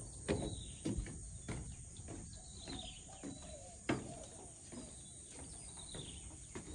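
Footsteps knocking on a wooden boardwalk about every half second, over a steady high insect drone, with birds chirping now and then.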